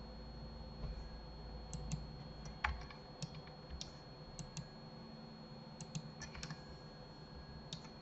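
Faint, irregular clicks of a computer keyboard and mouse: about fifteen scattered key and button taps.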